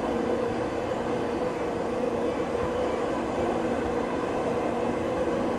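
Running sound inside motor car MoHa E231-901 of the JR East E231 series 900 prototype commuter train, which carries a Hitachi IGBT VVVF inverter. The train runs at a steady pace: even running noise with a steady hum that neither rises nor falls in pitch.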